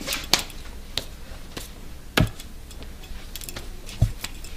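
A few scattered knocks and clicks, with two heavier thumps about two and four seconds in.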